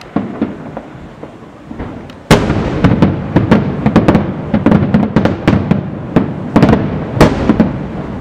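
Aerial firework shells bursting: a few scattered bangs, then a sudden loud bang a couple of seconds in and a rapid, dense run of bangs that thins out near the end.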